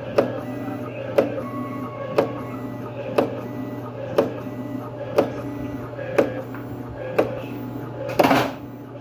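Automatic webbing-cutting machine running, its blade striking about once a second over a steady motor hum, with a longer, louder noise near the end.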